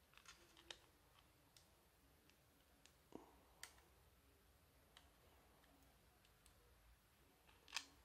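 Faint, irregular small clicks of fingers handling the plastic cover over an opened Acer Aspire 3 laptop's RAM slot, the loudest near the end.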